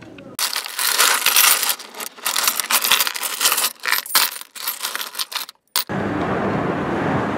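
Rapid, irregular metallic clinking and jingling for about five seconds. It stops abruptly and gives way to a steady traffic rumble.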